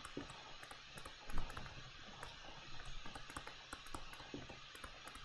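Faint, irregular light clicks and taps of a stylus on a tablet as words are handwritten, with one slightly louder tap about a second and a half in.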